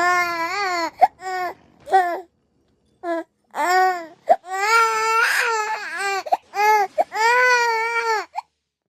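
A baby crying loudly: a run of high-pitched wails, each rising and falling in pitch, with short catches of breath between them and a brief total silence about a third of the way in. The longest wails, over a second each, come near the middle and near the end.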